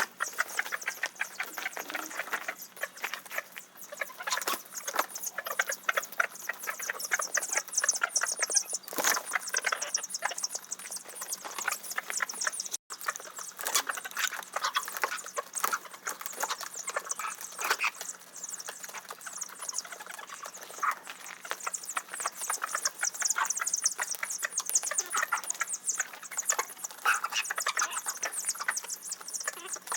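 Many chicks peeping, a dense continuous chatter of short high-pitched chirps that briefly cuts out about 13 seconds in.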